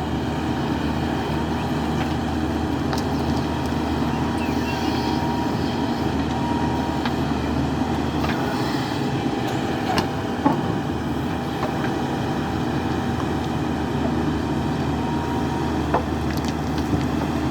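JCB 3DX backhoe loader's diesel engine running steadily under working load, with a few sharp knocks from the digging.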